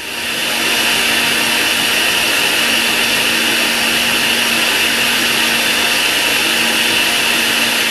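Braun countertop blender switched on and running steadily at speed, churning a jar of milk, coffee, sugar and chocolate powder. Its motor gives an even hum under the whir of the spinning blade and liquid.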